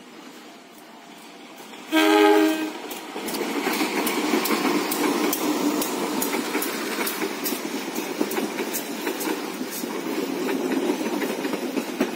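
Diesel-hauled passenger train (the Progo) blows a short, loud multi-note horn blast about two seconds in. Its carriages then run past close by with a steady rumble and regular clickety-clack of the wheels over the rail joints.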